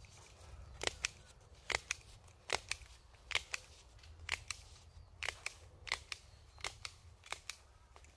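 Gloved hands working along a greenhouse's plastic film sheeting at a metal support pipe, with sharp clicks, mostly in quick pairs, about once a second.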